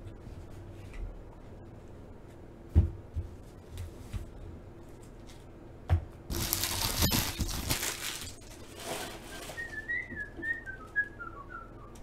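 Packaging handled at a table: a couple of knocks, then about two seconds of loud rustling. Near the end a person whistles a short tune that falls in pitch.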